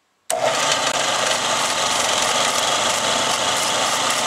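Belt sander running steadily, used to scuff brass pen-kit tubes so the glue will stick; it comes in suddenly about a quarter second in.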